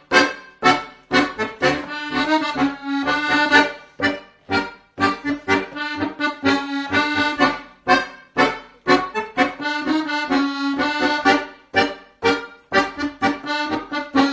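Instrumental background music: a tune of quick, evenly repeated notes over a recurring held note.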